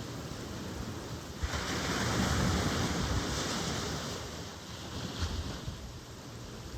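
Ocean surf: a wave breaks about a second and a half in, swells to its loudest, then washes out over the next few seconds, over a steady background wash, with wind rumbling on the microphone.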